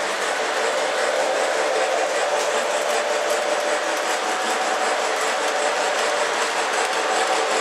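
O-gauge model steam locomotive and passenger cars running on three-rail track: a steady whirring hum from the locomotive's motor and wheels, with a light regular clicking.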